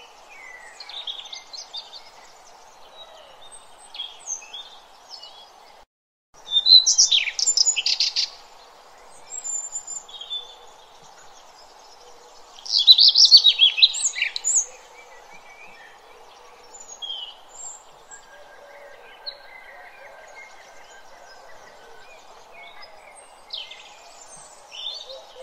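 Birds chirping and singing over a steady background hiss, with two louder bursts of rapid chirping. The sound cuts out for a moment about six seconds in.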